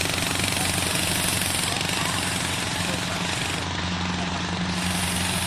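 Rice harvester's engine running steadily: an even low hum with a fast, regular rattle over machine noise.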